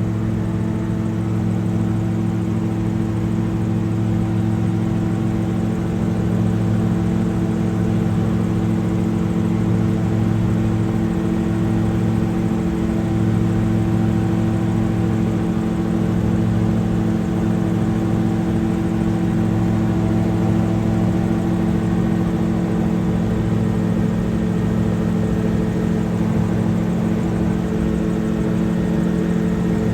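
Camera drone's propellers and motors humming steadily in flight, several held pitches that waver only slightly.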